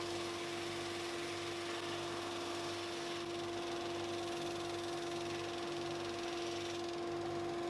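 A workshop machine's motor running steadily with no cutting: an even hum with a constant tone, unchanging throughout.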